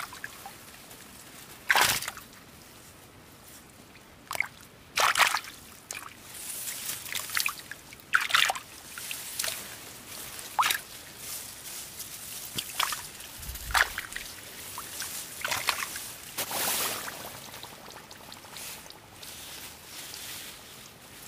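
Water sloshing and splashing in short, irregular bursts, about a dozen of them, with quieter dripping and trickling between.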